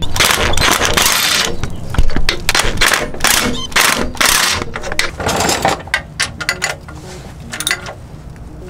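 Electric impact wrench on a long extension driving a downpipe bolt, rattling in several short bursts through the first six seconds, followed by quieter clicks and clatter of hand work.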